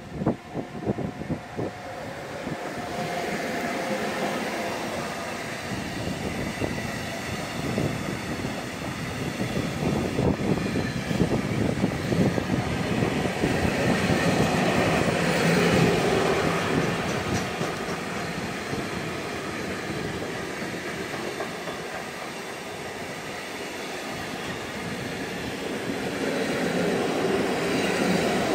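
Container freight train passing close by, hauled by a Class 186 (Bombardier TRAXX) electric locomotive. The locomotive goes by as the sound swells in the first few seconds, then a long line of container wagons keeps rolling past with a steady wheel rumble and rapid clickety-clack over the rail joints.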